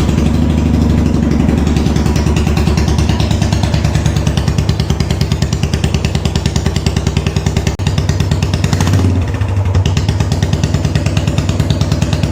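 Royal Enfield Classic 350's single-cylinder engine idling with the silencer removed, so it runs off the open exhaust pipe as a loud, rapid beat of separate exhaust pulses. About nine seconds in, the revs briefly rise and fall.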